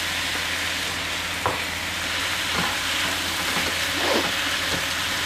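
Cabbage, capsicum, carrot and chopped egg stir-frying in oil in a non-stick wok over medium heat: a steady sizzle with the scrape and toss of a wooden spoon, and a light knock about one and a half seconds in.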